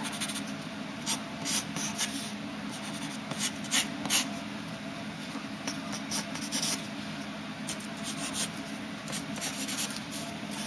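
Graphite pencil scratching on paper in short, irregular sketching strokes over a steady low hum.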